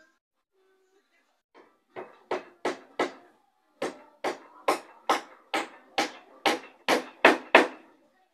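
Hammer blows on wood, typical of nails being driven into a wooden boat hull. Four blows come first, then after a short pause a run of about eleven steady blows that grow louder.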